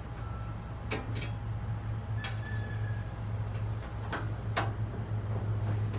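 Screwdriver working the screws out of the sheet-metal hopper box of a Camp Chef pellet grill: a handful of sharp metallic clicks, the loudest just past two seconds in with a short ring. A steady low engine hum runs underneath.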